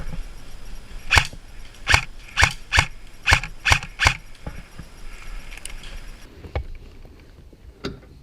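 Airsoft gun firing single shots: seven sharp cracks in quick succession about a second in, then two fainter ones near the end.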